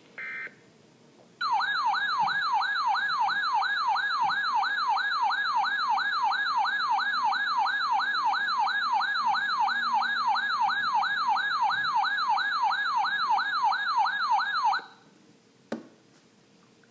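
Emergency weather alert tone: a loud warbling, siren-like tone that sweeps rapidly up and down about three times a second for some thirteen seconds, sounding the alert for a special marine warning. It is preceded by a brief burst of data tone and followed by a faint click.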